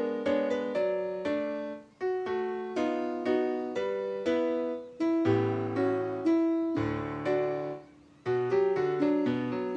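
Solo piano playing a simple children's round melody over low chords, with short pauses about two seconds in and again near eight seconds.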